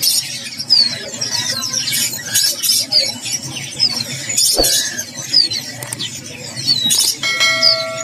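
Many caged birds chirping over one another, with short falling chirps repeating again and again. A steady pitched tone is held briefly near the end.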